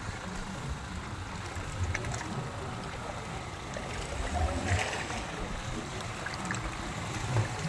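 Steady noise of sea water around a small fishing boat, with irregular low rumbles and a faint voice about four and a half seconds in.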